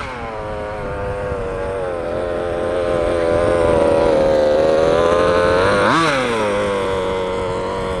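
Small 34cc two-stroke engine of a 1/5-scale RC car running on the move, its pitch creeping up and then holding level, with one quick rev up and back down about six seconds in. The owner says this engine chokes and gives no more power past half throttle.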